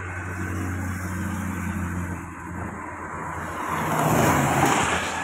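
Light cargo truck passing close by on the highway: engine running under tyre and road noise that swells to its loudest about four seconds in, then starts to fade.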